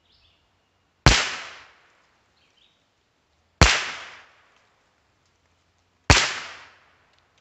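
Three rifle shots about two and a half seconds apart, heard from the target end, each a sharp crack that dies away in under a second.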